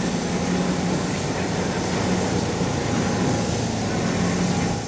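Steam locomotive's steam brake blowing steam through its small trumpet-shaped outlet: a loud, continuous hiss with a steady low drone underneath, the sound likened to a boar in rut that earned these engines the nickname 'berracos'.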